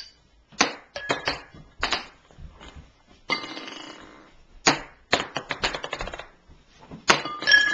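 Ping pong balls bouncing off a hard surface and clinking into drinking glasses: a quick, irregular run of light taps, some with a brief glassy ring, and a short rattle about three seconds in.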